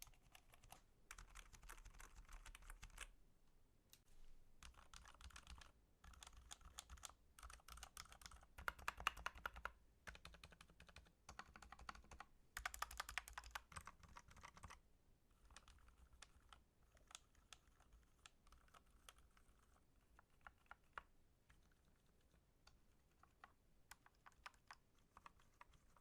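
Typing on a computer keyboard: bursts of rapid keystrokes, busiest in the middle, thinning to scattered single key presses over the last ten seconds.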